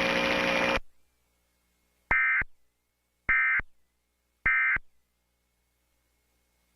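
Emergency Alert System end-of-message signal: three short, shrill bursts of digital data tones about a second apart. The alert's broadcast audio cuts off under a second before them.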